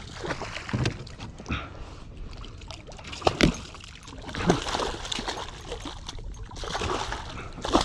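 A hooked redfish thrashing and splashing at the surface right beside a kayak, in repeated bursts of splashing with a few sharp knocks in between.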